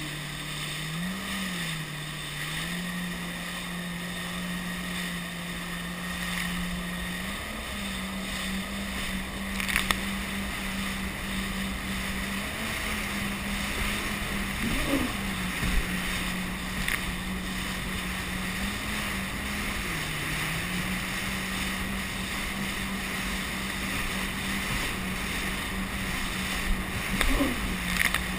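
Jet ski engine running at a steady pitch that steps up and down slightly with the throttle, over a rush of wind and water noise, with a few short sharp knocks.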